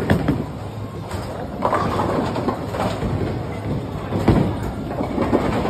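Bowling ball rolling down a wooden lane, a steady low rumble, with a sharp knock about four seconds in.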